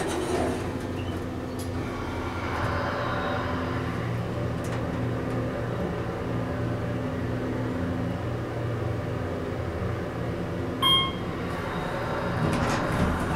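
Otis elevator car running, a steady hum heard inside the car, followed about eleven seconds in by a short electronic chime, the car's arrival signal.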